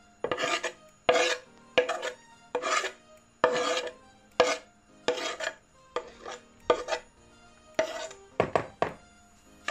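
A spatula scraping across a wooden chopping board in about a dozen quick strokes, pushing chopped mushrooms off the board into a bowl.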